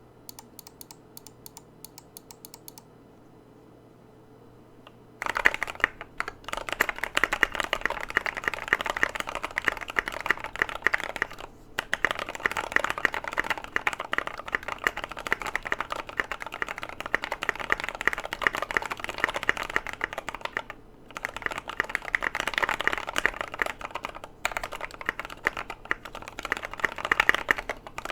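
Typing on a mechanical keyboard with lubed Gateron Yellow linear switches, MT3 keycaps, a polycarbonate plate and a foam-filled case. A few faint clicks come first, then fast, continuous typing starts about five seconds in, broken by a few short pauses.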